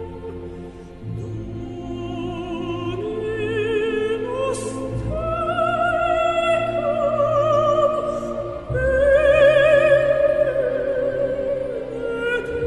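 Background music: a solo operatic voice singing long held notes with wide vibrato, the phrase climbing in pitch and growing loudest near the end, over a sustained orchestral accompaniment.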